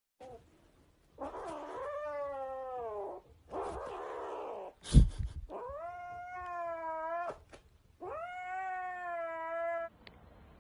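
Cat yowling: three or four long drawn-out cries, each lasting a second or two, with breathy noisy stretches between them. A sharp thump about five seconds in is the loudest sound.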